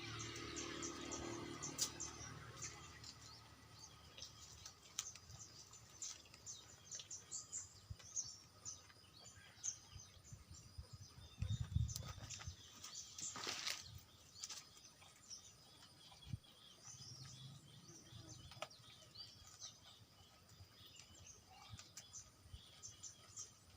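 Small birds chirping faintly, many short high chirps scattered throughout. About halfway through there is a louder low thump with a brief rustle, the loudest sound in the stretch.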